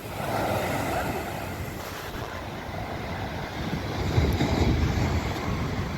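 Wind buffeting the microphone over a steady rushing noise, with heavier low gusts about four to five seconds in.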